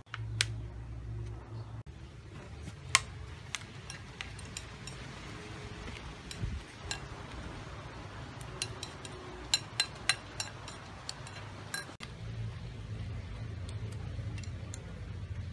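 Metal spoon clinking against a ceramic bowl while a sauce is stirred and mixed: scattered sharp clinks, with a quick run of them about two-thirds of the way through, over a steady low hum.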